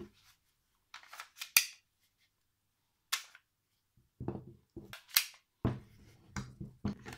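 Heckler & Koch P30 pistols and a pistol magazine being handled and set down on a padded mat: a few sharp clicks of metal and polymer parts, the loudest about a second and a half in, then a string of soft knocks in the second half.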